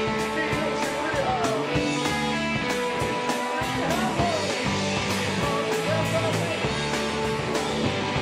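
Rock song played by a small band: guitar over bass guitar in a steady rhythm.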